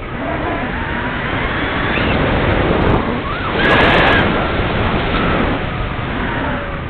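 Airflow rushing over the wing-mounted camera of a Parkzone Radian Pro RC glider in flight. It is a steady wind rush that swells loudest about halfway through, then eases off.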